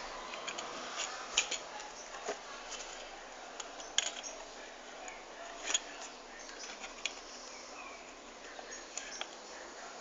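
Hands handling the retail box and packaging of a CPU: scattered light taps, clicks and rustles, with a few sharper clicks about one and a half, four and five and a half seconds in.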